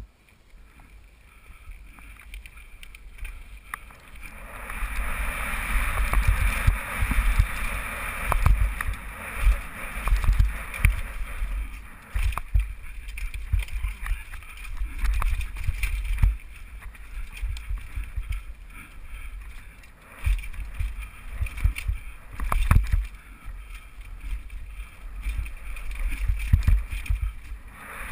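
Downhill mountain bike riding fast over a rough rocky trail: wind rumbling on the camera microphone, tyres rolling over dirt and rock, and the bike rattling with frequent sharp knocks as it hits rocks and drops. It is quieter for the first few seconds, then gets louder once the bike is up to speed.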